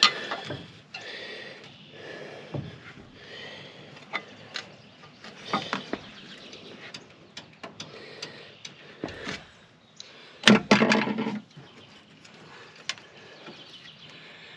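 Scattered clinks and knocks of hand tools and metal parts during work on a truck engine's air compressor, with a louder clatter about ten and a half seconds in.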